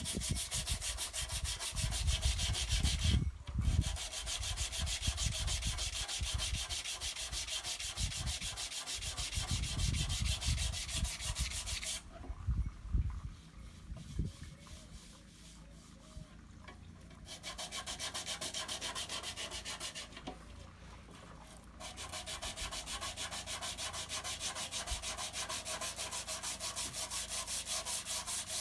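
Sandpaper dry-sanding cured body filler in quick, even back-and-forth strokes, about three a second, stopping twice for a few seconds. Low thuds of handling come through in the first half.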